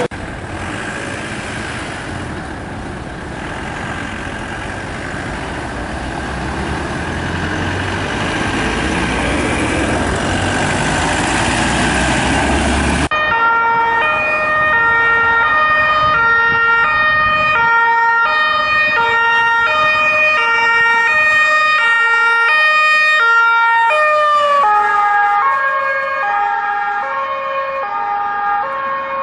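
German police two-tone siren (Martinshorn) on police vehicles making an emergency run, its two notes alternating steadily about once a second. About two-thirds of the way through, the notes slide lower and the alternation slows as the vehicle passes. Before that, after a cut, comes a loud, dense noisy din with no clear pattern.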